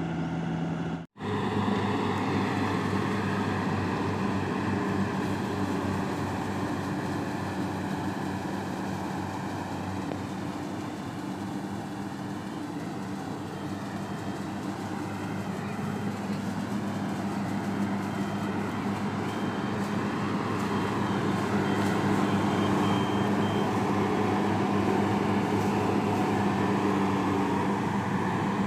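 Engine of farm machinery running steadily under load, with a sudden momentary break about a second in where one shot cuts to the next.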